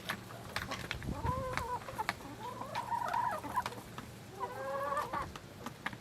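Flock of chickens clucking as they feed, with three drawn-out clucking calls and scattered short taps.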